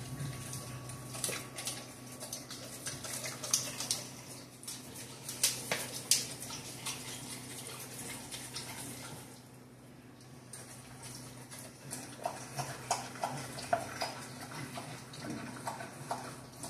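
A dog licking and chewing at a raw whole chicken: a run of wet smacking and licking noises, easing off for a moment about halfway and then picking up again.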